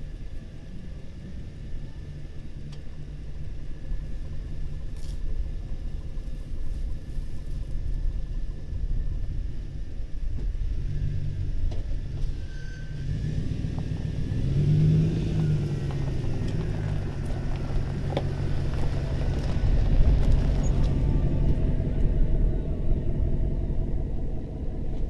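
A motor vehicle's engine running with a low rumble; its pitch rises and then falls about halfway through, as when the vehicle speeds up and slows down.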